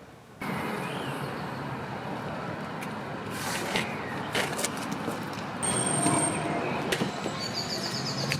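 Steady background rumble with a faint low hum, starting abruptly about half a second in, with scattered light clicks and knocks on top.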